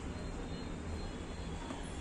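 Steady low background hum and hiss with no voices and no distinct events.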